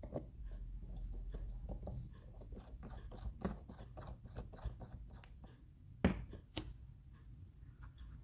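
Light clicks, taps and scrapes of small plastic microscope parts being handled and fitted back together, with two sharper clicks about six seconds in.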